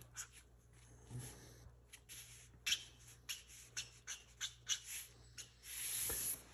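Sharpie marker drawing on cardboard: a run of quick, short scratchy strokes, then one longer stroke near the end.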